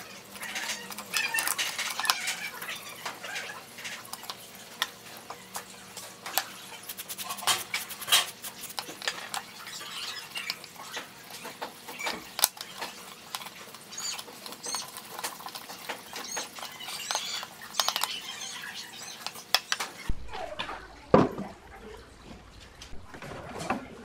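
Many light clicks and taps at irregular intervals, with short high squeaks in between. About twenty seconds in the sound changes and a single loud knock follows.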